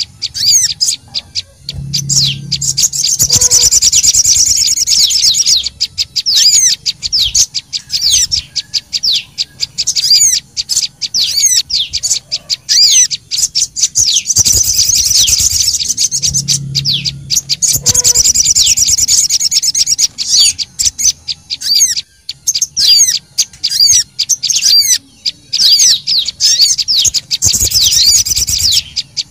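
Bird-lure recording of sogon and prenjak lumut calling agitatedly: dense, rapid, high-pitched chirps and chattering trills, with busier, louder stretches about every fifteen seconds.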